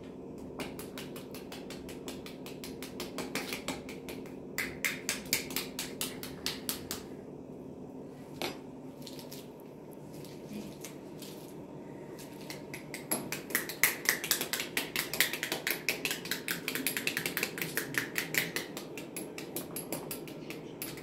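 Pomegranates being broken open and their seeds picked by hand into a plastic basin: a steady stream of quick clicks and crackles, busier and louder in the second half.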